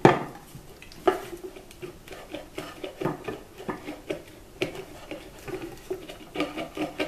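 Dried-out wooden spinning-wheel rim being worked apart by hand at an old re-glued, doweled joint: a sharp knock at the start and another about a second in, then a run of small, irregular clicks and creaks as the joint gives.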